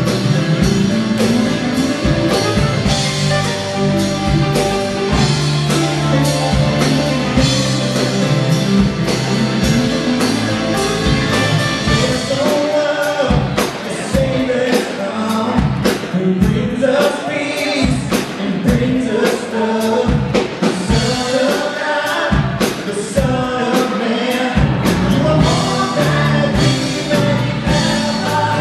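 A live worship band playing a gospel praise song: women's voices singing the melody into microphones over keyboard, electric bass, electric and acoustic guitars, and a drum kit keeping a steady beat.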